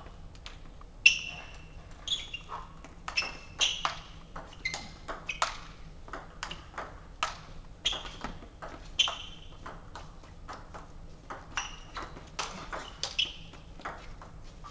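Table-tennis rally: the ball clicking off the paddles and bouncing on the table, about two to three sharp hits a second, each with a short ring in the hall.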